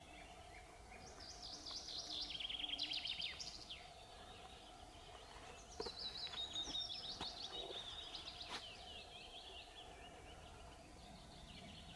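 Songbirds singing: a quick run of trilled notes falling in pitch about a second in, and another rapid phrase of high notes around six seconds in, over a faint steady hum.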